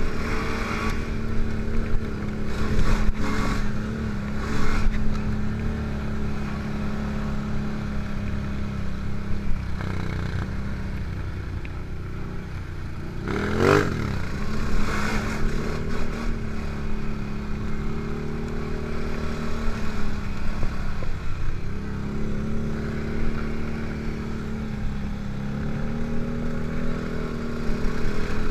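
An ATV engine running steadily while the quad rides a bumpy dirt trail, its pitch dropping and climbing again twice as the throttle is eased and reapplied. Scattered rattles and knocks come from the bumps, and a short loud burst of noise about halfway through.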